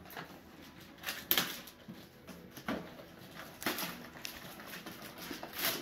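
Scattered light clicks and knocks of toy play-food pieces and their box being handled, with a sharper tap about a second in and another near the end.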